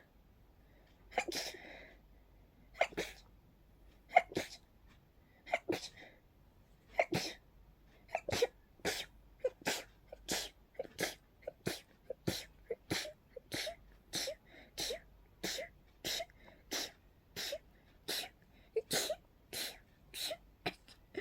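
A person's sneezing fit: a long run of short sneezes, one every second or so at first, then coming faster, about two a second, with barely a breath between them. The sneezer blames pollen.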